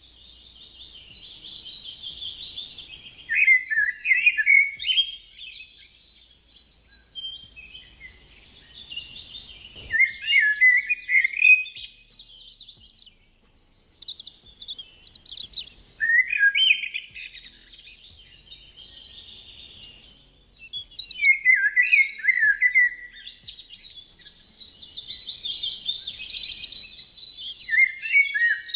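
A songbird singing the same phrase over and over, about four times: a long high trill, then a run of louder, lower notes.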